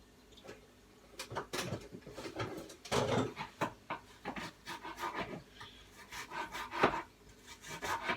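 A kitchen knife cutting onion on a chopping board: uneven strokes and scrapes starting about a second in, with one sharper knock of the blade on the board near the end.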